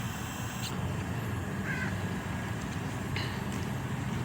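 Steady low hum of road traffic, with a few short bird calls, one about two seconds in and another about three seconds in.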